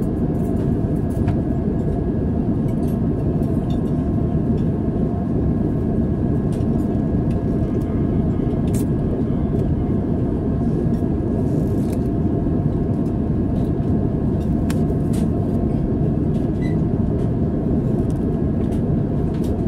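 Airbus A350 cabin noise in flight: a steady, even roar of engines and airflow, with a faint steady whine above it. A few light clicks and rustles from cutlery being unwrapped from a cloth napkin.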